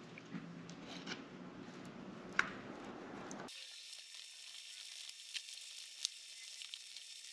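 Faint scraping and stirring as two-part epoxy is mixed in a small container, with light scattered ticks. About halfway through, the sound thins abruptly to a faint high hiss.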